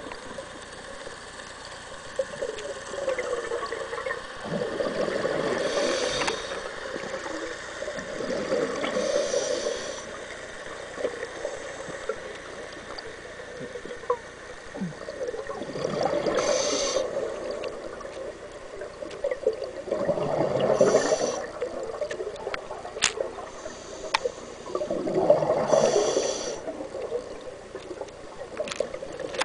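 Scuba diver breathing through a regulator underwater: about every four to five seconds, a short hiss of inhaled air through the regulator is followed by a rush of exhaled bubbles gurgling past. A few light clicks come in between.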